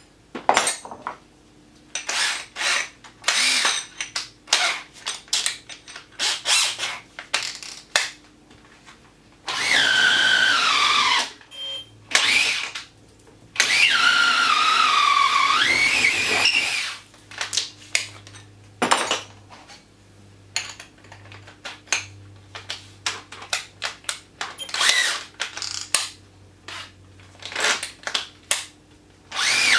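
Festool TI 15 cordless drill with an auger bit, run in many short bursts on the trigger and two longer runs of a few seconds, its motor whine sagging and rising in pitch as it drills into timber.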